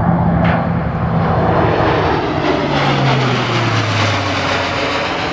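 The four turboprop engines of a C-130J Super Hercules, heard as a loud propeller drone as the aircraft flies low overhead. Its pitch drops about halfway through as the aircraft passes by.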